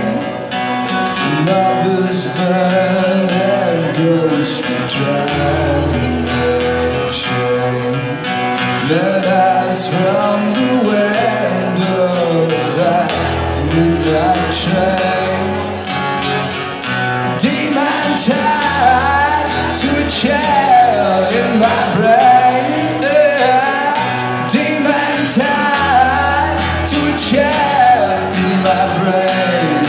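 Live solo performance: a man sings while strumming an acoustic guitar. His singing grows stronger a little past halfway.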